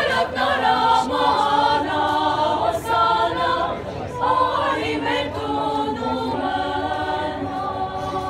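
Teenage school choir singing a cappella, several voices holding notes in harmony. There is a short break between phrases about four seconds in, and the singing is softer after it.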